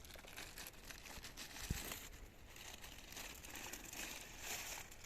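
Packaging rustling and crinkling as a boxed speaker is unpacked, with one soft thump about a second and a half in.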